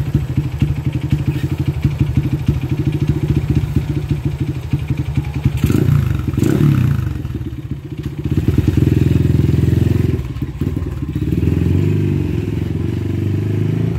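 Honda CB motorcycle's single-cylinder engine idling with a quick, even beat after a carburettor setting. It is blipped twice about six seconds in, then held at higher revs as the bike pulls away and rides off.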